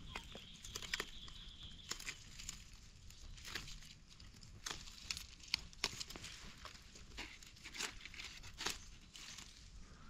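Dry leaf litter and twigs crackling and rustling in irregular sharp snaps as someone moves and pushes through the undergrowth. A thin, steady high tone runs under the crackles for the first couple of seconds, then stops.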